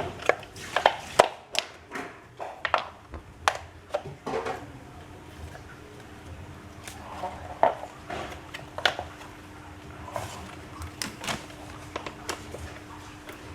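Irregular sharp clicks and metallic clinks, thickest in the first few seconds, then sparser: parts of a metal wheeled washing-machine base being handled and fitted together during assembly.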